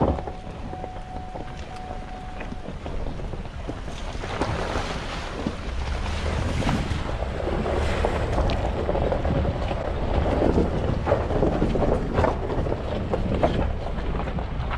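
Ford F-150 pickup driving slowly over a rocky dirt road: low rumble with tyres crunching on gravel and scattered knocks from stones. Wind buffets the outside-mounted microphone, and the noise gets louder about four seconds in.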